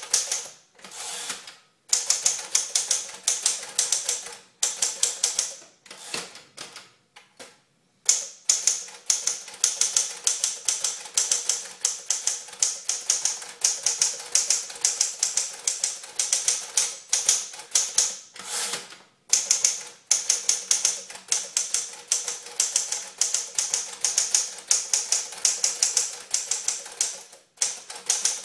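Smith-Corona Clipper manual portable typewriter being touch-typed: fast runs of sharp keystroke clacks as the typebars strike, broken by brief pauses and a longer lull about seven seconds in.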